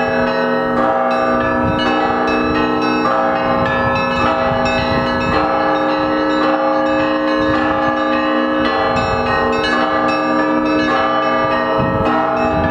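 Russian Orthodox monastery bells ringing a zvon: many bells of different pitches struck in a quick, steady rhythm, their ringing tones overlapping without a break.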